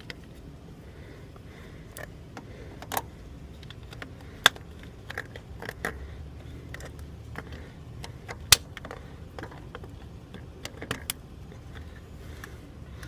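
Scattered clicks and clacks of metal and plastic parts being handled while a portable jump starter is hooked up to a car battery, with two sharper knocks about four and a half and eight and a half seconds in.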